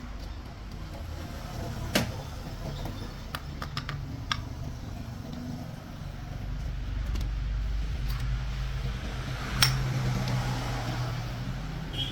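Sharp metallic clicks and knocks, one about two seconds in, a quick cluster a second or two later and a loud one near the end, over a low steady rumble that grows louder about halfway through.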